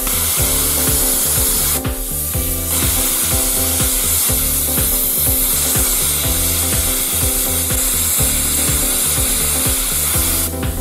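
Plasma cutter cutting through steel: a loud, steady hiss with crackle as the arc throws sparks. It stops briefly about two seconds in, then runs on until it cuts out just before the end.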